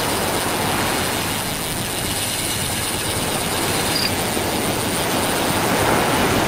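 Sea surf washing and breaking on the shore, a steady rushing noise.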